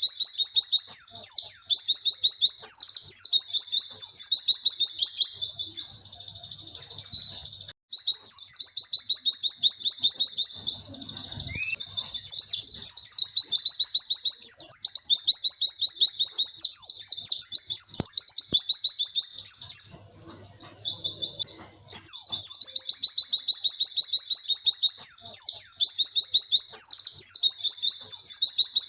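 White-eye (pleci) singing its long 'wit-wit' song: strings of very rapid, high, repeated notes lasting several seconds each, broken by short pauses twice.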